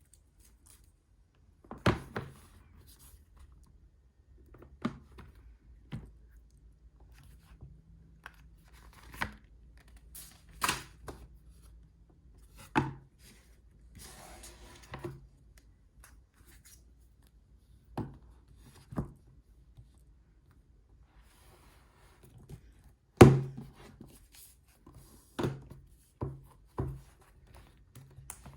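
Hands unboxing an Apple Magic Keyboard: scattered taps, clicks and thunks as the packaging and keyboard are handled and set down on a hard surface, one every second or two. There is a short stretch of rustling about halfway through, and the loudest thunk comes a little past three-quarters of the way.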